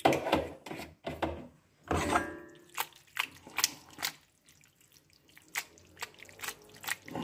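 Mezze penne in a thick sauce being tossed in a metal frying pan: irregular wet slaps and sloshes as the pasta lands back in the pan.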